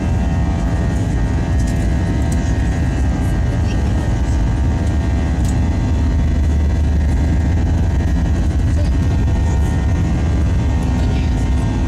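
Airbus A321 jet engines heard inside the passenger cabin in flight: a steady, loud drone, a deep rumble with a hum of several steady tones above it.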